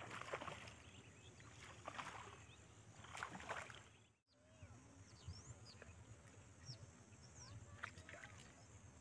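Faint water splashes, three short ones in the first four seconds, from a snakehead swirling at a topwater frog lure. The sound cuts out briefly about four seconds in, and after that only faint bird chirps are heard.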